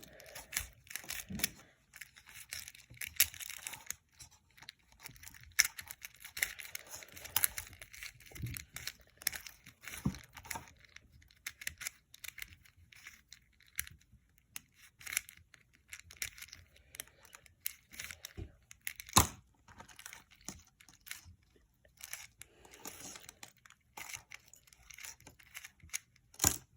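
Small plastic puzzle cubes being handled and twisted, stiff to turn: irregular clicks, scrapes and crinkling of plastic, with one sharper click about 19 seconds in.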